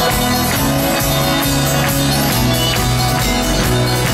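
Live folk-rock band playing an instrumental passage with no singing: strummed acoustic instruments over sustained upright bass notes, with an even driving beat.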